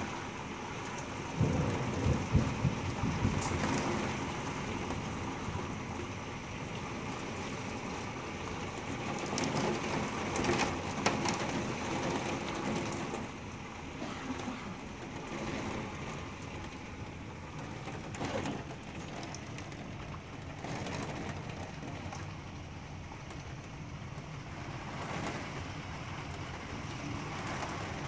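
Heavy rain and hail beating down on a window and wooden deck, heard from indoors through the glass, with a low rumble of thunder a couple of seconds in and a few sharper knocks of hailstones striking.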